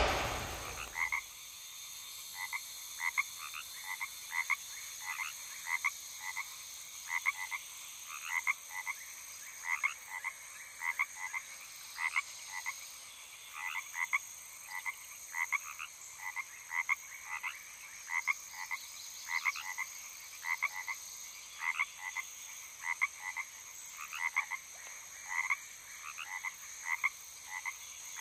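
Frogs croaking at night: short, irregular croaks, two or three a second, over a faint steady high-pitched hum.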